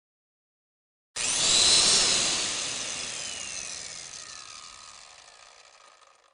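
A power tool's motor cutting in suddenly about a second in, then winding down with a falling whine and slowly fading out.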